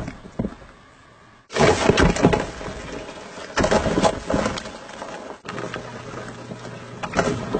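Banging and clattering against a plastic tub as an African bullfrog lunges and snaps, in three loud bursts about a second and a half, three and a half and seven seconds in.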